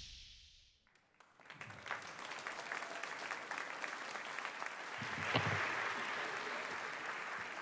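Audience applauding, starting about a second in after a moment of near silence, a dense patter of many hands clapping.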